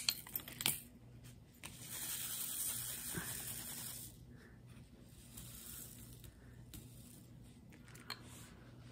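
Thin plastic crinkling and rustling as the diamond-painting materials are handled, for a couple of seconds starting about one and a half seconds in, after a few light clicks; faint handling sounds follow.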